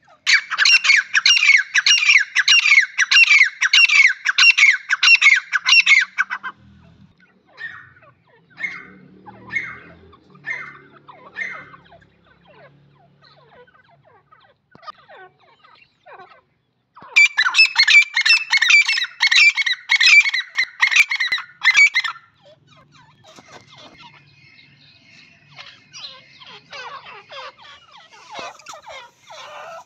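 Grey francolins calling: two loud runs of rapid, harsh, evenly repeated notes, about three a second. The first lasts about six seconds from the start, and the second about five seconds past the middle. Scattered softer notes fall between the runs, and fainter chatter comes near the end.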